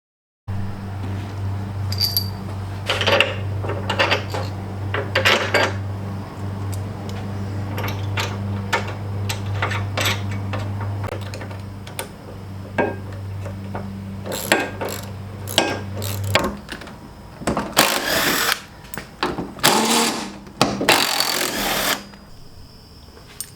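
Carrier hinge bolts being tightened with a power tool, run in short bursts of about half a second to a second near the end, with clinks and knocks of metal hardware. A steady low hum runs under the first two-thirds and stops suddenly.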